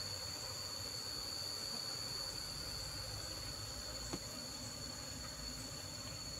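Steady high-pitched insect drone: one constant shrill tone with a fainter, higher one above it, with a single soft click about four seconds in.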